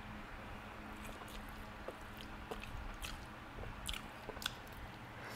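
A person chewing a mouthful of stir-fried instant noodles, with a scatter of small wet mouth clicks and smacks, the loudest about four seconds in as another bite of noodles goes in.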